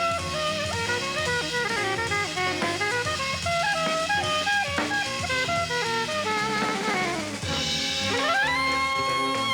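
Jazz music with saxophone and drum kit: a busy melodic line slides down about six seconds in, then climbs to a long held high note near the end.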